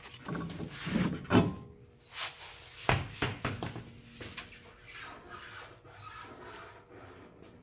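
Handling noise from work on the van's rear wheel and brake drum: a few sharp knocks, the loudest about a second and a half in, with rubbing and scraping between them.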